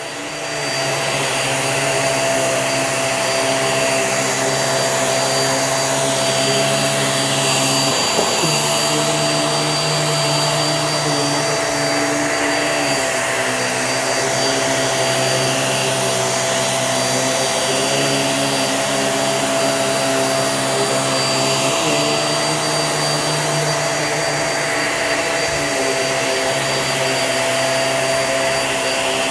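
Hoover React QuickLift bagless upright vacuum running steadily on a rug, a motor hum with a high whine over it. The low hum shifts briefly a couple of times as the machine is worked over heavy pet hair and dirt.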